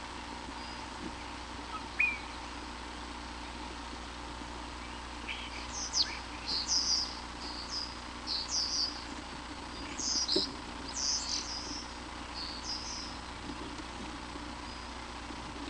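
Birds chirping: two single rising chirps in the first couple of seconds, then a run of quick, high chirps from about five seconds in to about thirteen, over a faint steady hum.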